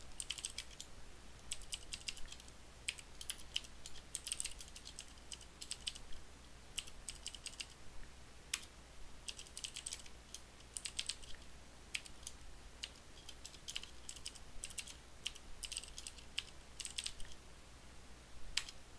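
Computer keyboard being typed on in short runs of keystrokes separated by brief pauses.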